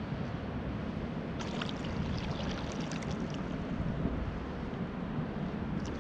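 Kayak paddle strokes: water splashing and dripping off the paddle blade, with a spell of small crackling splashes in the middle, over a steady rush of wind and water on the microphone.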